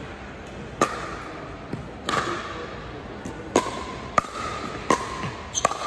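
Pickleball rally: paddles striking a hard plastic pickleball back and forth, about six sharp pocks spaced roughly a second apart, echoing in a gymnasium.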